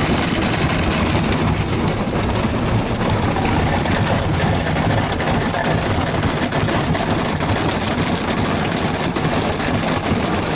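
Ryko Softgloss Maxx rollover car wash scrubbing a truck, heard from inside the cab: spinning cloth brushes and spraying water against the body make a loud, steady, dense noise.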